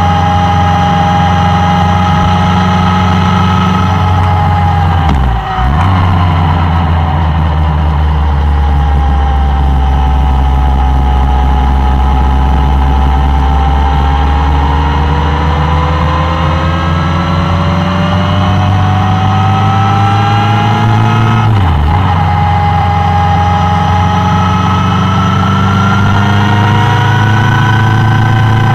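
Suzuki Bandit 1200's inline-four engine running under way. The engine note sinks and rises again with the throttle, and drops away briefly at gear changes about five seconds and about twenty-two seconds in.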